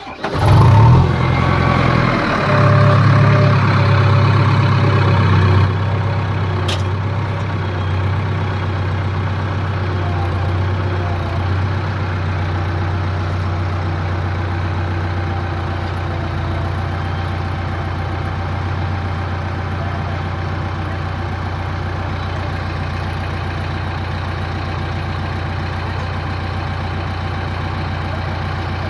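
JCB backhoe loader's diesel engine running close by, loud and worked hard for the first six seconds, then settling to a steady low drone while the front loader bucket lifts against a tipped, sand-loaded tractor trolley. A single sharp click sounds about seven seconds in.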